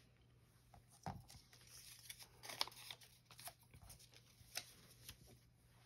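Paper labels being peeled off a whiteboard and handled: a handful of faint rustles and small clicks, spaced out over a few seconds.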